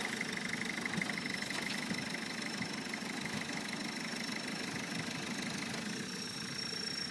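UMM Cournil 4x4's engine idling steadily.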